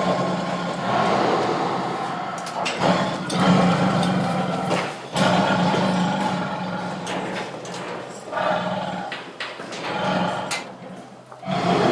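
Tiger roaring: a series of long, rough roars, one after another with brief pauses between them.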